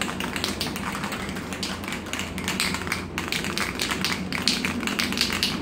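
Aerosol spray paint can being shaken, its mixing ball rattling in quick, slightly irregular clicks.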